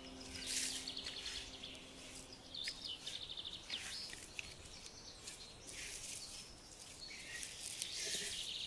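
Birds chirping and trilling in short repeated calls over a light outdoor background hiss. A few held low music notes fade out about two and a half seconds in.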